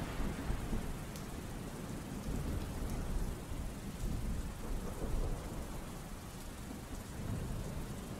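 Steady rain falling with a low thunder rumble underneath.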